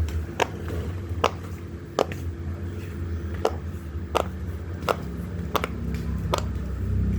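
Silicone pop-it fidget toy having its bubbles pressed one by one: about ten sharp pops at a steady pace, a little under a second apart.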